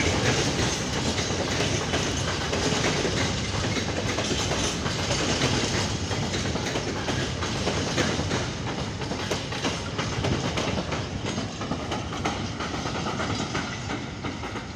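A freight train of PKP Cargo open-top wagons rolling past with a steady rumble and repeated clicking of wheels over rail joints. It eases off slightly toward the end as the last wagon goes by.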